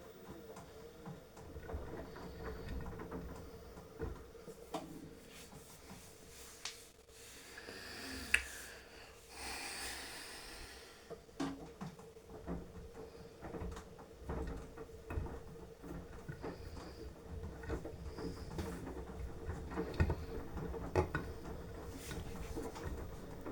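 Beko washing machine washing: a steady motor hum under the turning drum, with irregular thumps and knocks from the tumbling laundry and water. About nine seconds in there is a brief hiss of water.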